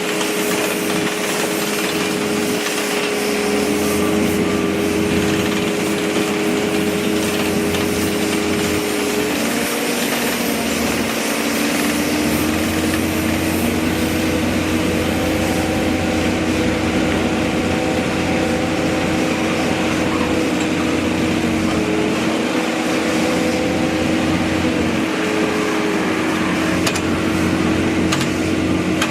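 Construction machinery running steadily: several engine tones that now and then step up or down in pitch over a constant loud noise.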